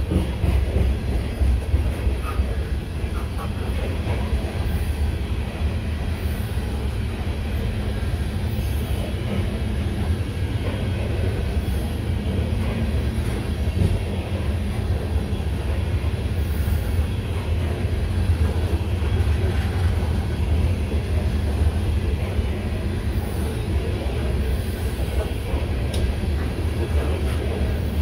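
Freight train of open-top hopper cars rolling past at close range: a steady rumble of steel wheels on the rails.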